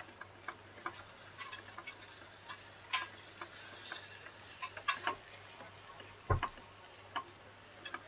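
Wooden spatula stirring and scraping a thick, crumbly paste in a nonstick kadhai, making soft irregular taps and clicks against the pan, with one louder knock about six seconds in.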